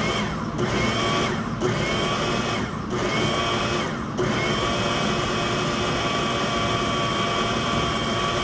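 Small electric food processor chopping a crawfish mixture: its motor whines in short pulses, about four in the first four seconds, then runs unbroken for the rest of the time.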